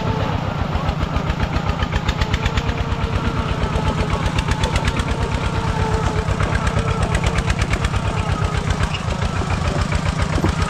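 An engine running steadily at a constant speed, with a quick, even knocking beat of firing pulses.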